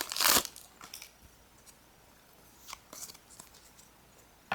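Foil booster-pack wrapper crinkling and tearing open in the first half-second, then a few faint rustles and clicks of trading cards being handled.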